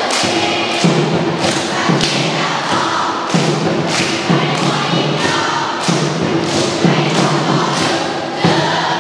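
A group of students chanting the multiplication tables in unison in Thai, over a steady percussive beat of a little under two strokes a second.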